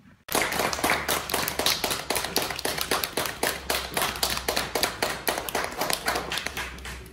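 Audience applauding: many hands clapping quickly and unevenly. It starts abruptly about a quarter of a second in and thins slightly near the end.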